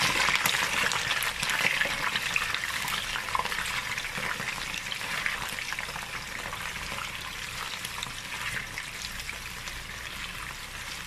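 Raw chicken drumsticks frying in hot cooking oil in a nonstick karahi: a dense, crackling sizzle that slowly gets quieter, as the pieces are stirred with a wooden spatula. This is the first frying of the raw chicken.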